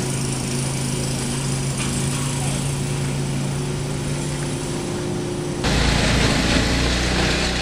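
A small engine running steadily with an even hum. About five and a half seconds in, it gives way to a louder rushing noise with a deep rumble.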